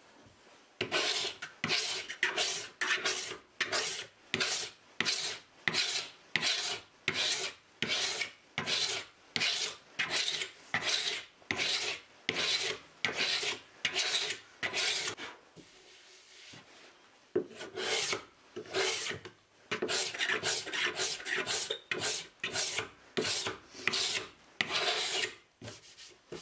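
A hand tool is scraped back and forth across the face of an apple-wood cutting board in quick rasping strokes, about two a second, with a pause of a couple of seconds midway.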